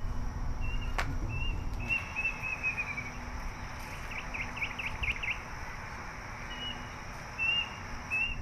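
An unidentified bird calling: short high chirps, then a quick run of about six sharp downward-slurred notes around the middle, then more chirps near the end.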